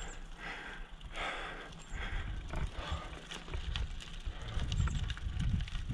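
A cyclist breathing hard in a steady rhythm while climbing a steep grade on a road bike. Wind starts buffeting the microphone with a low rumble about two seconds in.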